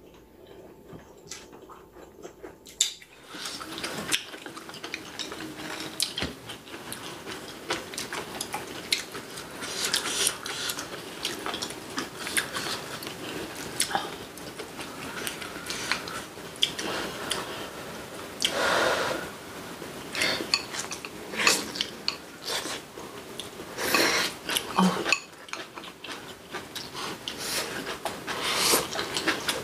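Close-miked eating: chewing braised kimchi whose cabbage is still crisp, with chopsticks and spoons clicking against ceramic bowls. Quieter for the first two or three seconds, then a dense run of clicks and mouth sounds.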